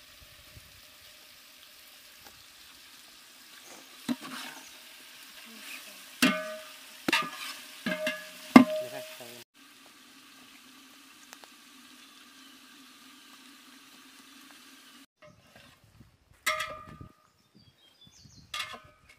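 Chicken sizzling in a large aluminium cooking pot while a metal spatula stirs it, scraping and clanking against the pot with a run of loud ringing knocks a few seconds in. Near the end, a ladle knocks against the pot twice more.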